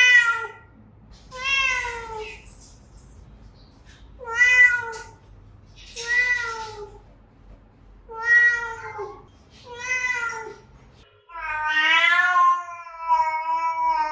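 Domestic cat meowing repeatedly: about six short meows, one every couple of seconds, then a longer, drawn-out meow near the end.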